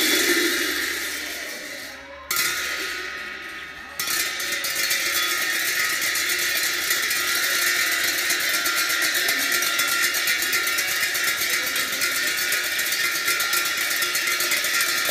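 Monastery ritual music on metal percussion, typical of cymbals: two ringing clashes that die away, then from about four seconds a fast, steady roll.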